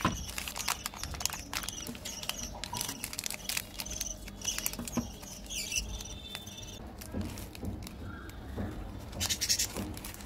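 Plastic candy-bar wrappers crinkling and crackling as they are handled and turned over. Short high chirps sound in the background.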